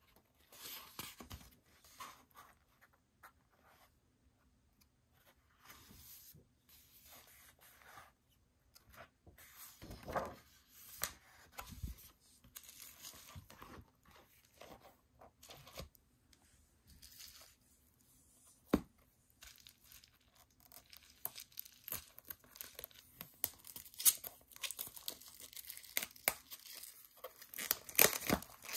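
Paper and plastic album packaging being handled: intermittent rustling, crinkling and small clicks, with one sharp click about two-thirds through. Near the end the crackling grows denser as plastic wrapping is torn at the edge of an album.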